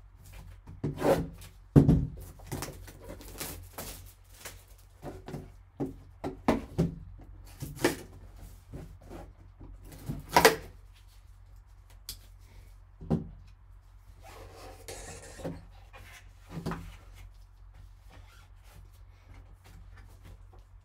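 A sports card box being opened and its contents handled: a run of taps, knocks and rustles of cardboard and plastic, sharpest about two seconds in and about ten seconds in, with a longer rustle around fifteen seconds in.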